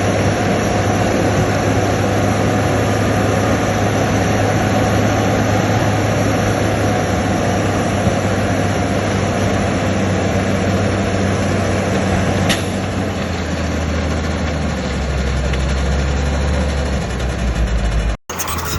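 Heavy diesel earthmoving machinery (bulldozer or dump truck) running steadily, its engine note dropping lower about two-thirds of the way through, with one sharp click a little after the middle. The sound cuts off abruptly just before the end.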